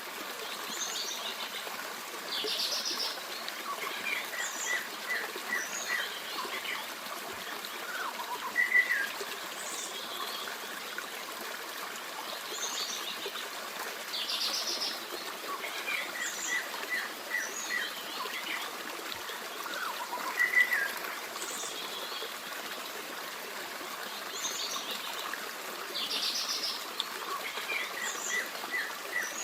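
A forest stream runs steadily while songbirds sing and chirp over it, with short, quick runs of chirps and brief calls. The same sequence of bird calls comes round again about every twelve seconds.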